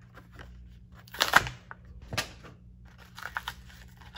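Hot Wheels blister pack being opened by hand: the clear plastic bubble and card crackle and tear in a few sharp, irregular crackles, the loudest a little over a second in.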